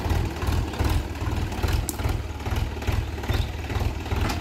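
Mahindra Bhoomiputra tractor's diesel engine idling steadily with an even low throb, one short click about two seconds in.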